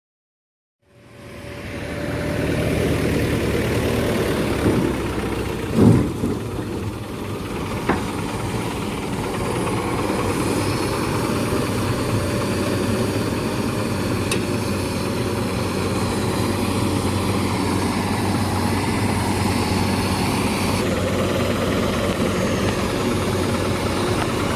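Heavy diesel engine running steadily, fading in about a second in. A loud thump comes about six seconds in and a sharp knock near eight seconds.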